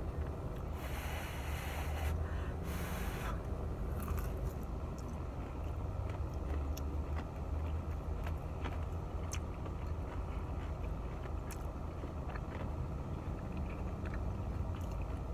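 A person chewing a fried chicken tender, with faint wet clicks of mouth sounds over a steady low rumble inside the car. Two short hissing noises come about one and three seconds in.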